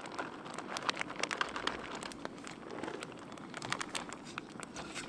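Plastic bag of shredded cheddar crinkling as the cheese is shaken out of it, with quick irregular crackles that are thickest in the first couple of seconds.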